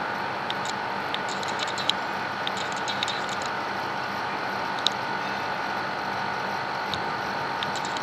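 Steady urban background hum with a few faint steady tones, dotted with short, sharp high clicks, the loudest about two seconds and five seconds in.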